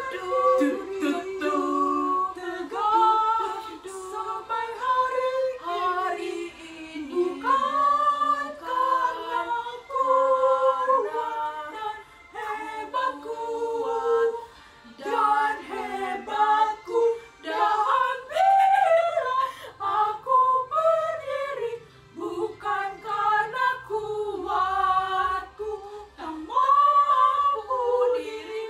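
Three young women singing a song together without accompaniment, their voices holding notes in a lilting melody.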